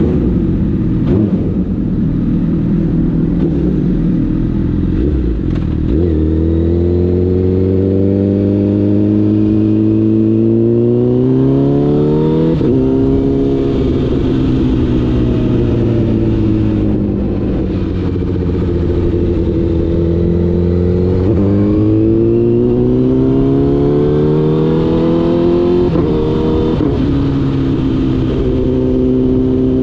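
Honda CBR1000RR inline-four sportbike engine pulling under throttle, its pitch climbing steadily for several seconds, then dropping sharply about twelve seconds in and again near the end before holding steadier. The pitch also eases down for a while in the middle.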